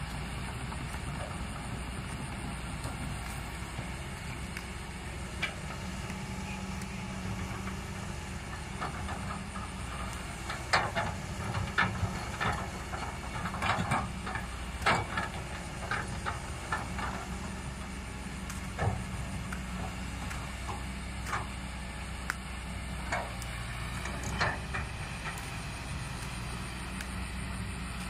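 A heavy engine idling steadily, with scattered sharp clicks and knocks over the second half, busiest from about ten to sixteen seconds in.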